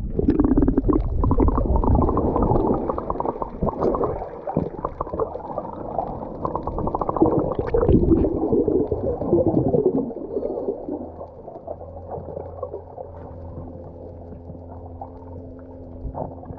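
Underwater water noise picked up by a submerged action camera: a splash as it goes under, then muffled rushing and bubbling with small knocks as the swimmers dive. After about ten seconds it drops to a quieter, steady low hum.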